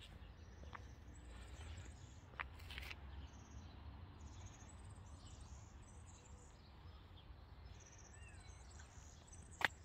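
Faint outdoor ambience: small birds chirping and twittering high and thin over a steady low rumble. A few sharp clicks, the loudest one near the end.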